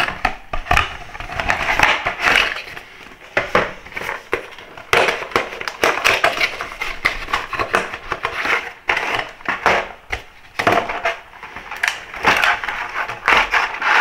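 Handling of model-train packaging: a cardboard box and a clear plastic blister tray crackling and clicking as a model freight wagon is worked out of it, in several irregular spells with short pauses.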